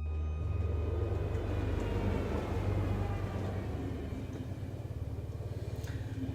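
A steady low rumble with a faint hiss, and faint falling tones in the first few seconds.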